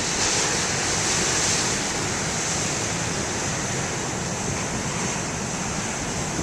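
Big ocean waves breaking, a steady rush of surf with little rise and fall.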